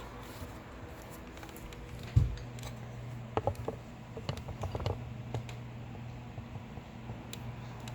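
Handling noises: one dull thump about two seconds in, then a scatter of light clicks and taps, over a steady low hum.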